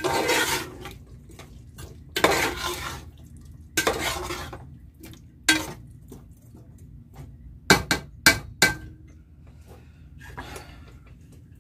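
Metal spoon stirring potatoes in masala in an aluminium pot: a few short scraping strokes, then sharp clinks of metal on the pot, three of them close together about eight seconds in.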